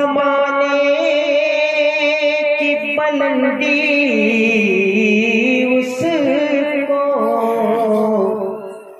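A man singing a naat unaccompanied into a microphone, in long held notes that waver and bend through ornamented runs, fading out near the end.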